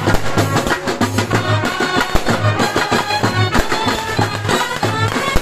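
Brass band of trumpets, clarinets and a large brass horn playing a lively tune over a steady drum beat.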